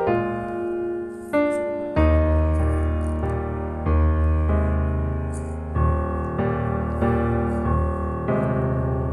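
Background piano music: slow chords changing about once a second, with a deep bass note coming in about two seconds in.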